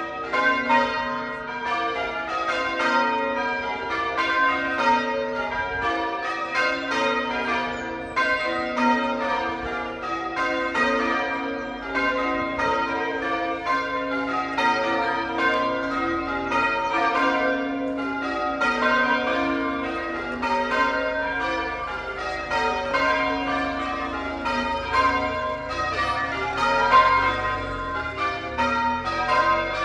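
A ring of church bells rung in changes, struck one after another in a steady, unbroken stream.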